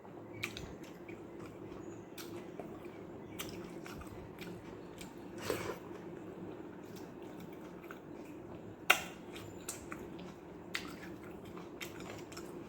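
A person eating rice mixed with watery sambar, close to the microphone: wet chewing and mouth clicks at irregular moments, with one sharp click, the loudest sound, about nine seconds in.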